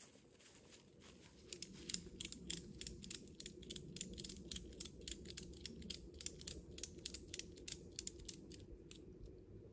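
Footsteps and shuffling in dry leaf litter: a dense, irregular run of crisp crunches and crackles that starts about a second and a half in and thins out near the end.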